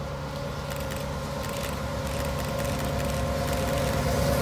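An approaching train led by a diesel locomotive, its engine rumbling and growing steadily louder as it nears.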